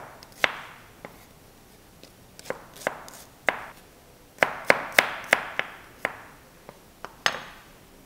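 Kitchen knife slicing shallots on a cutting board: irregular sharp knocks of the blade hitting the board, with a quick run of about five cuts around the middle.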